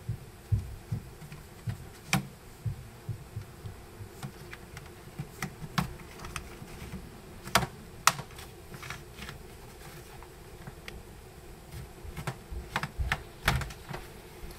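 Thin plastic prying tool worked around the edge of a laptop's plastic bottom panel: scattered, irregular sharp clicks and soft knocks as the panel is levered away from the chassis, with a couple of sharper clicks about eight seconds in.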